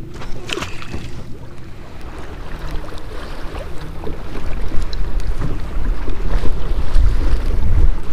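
Strong wind buffeting the microphone and choppy waves slapping around a kayak on rough open water, the low wind rumble growing louder through the second half. A short splash near the start.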